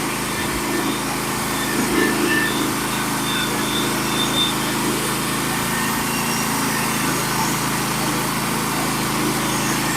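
Portable sawmill's engine running steadily, an even hum with no change in speed.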